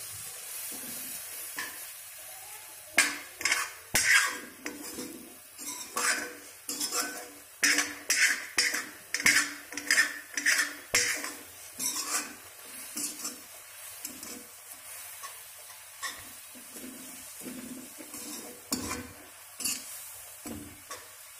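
A metal spoon scraping and clinking against a metal kadhai as fried vermicelli is stirred in heating milk. The strokes come quickly, about two a second, through the first half, then thin out to a few scattered scrapes.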